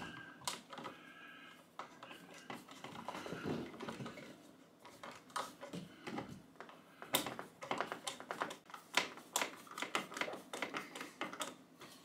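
Old-work electrical box being screwed down into the wall so that its clamps grip the back of the wall: a run of small, irregular clicks and ticks from the screws and box, thicker in the second half.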